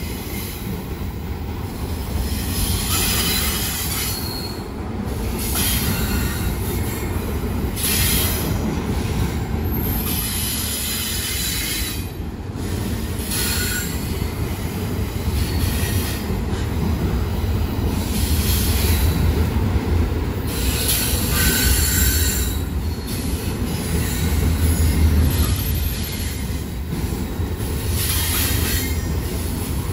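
A train rolling past: a continuous low rumble with high-pitched metallic wheel squeal that comes and goes every second or two.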